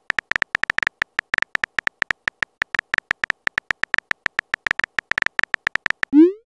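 Simulated phone-keyboard tap sounds from a texting-story app as a message is typed: short clicks, each with a brief high beep, about seven or eight a second at an uneven pace. Near the end a short rising swoosh starts as the message is sent.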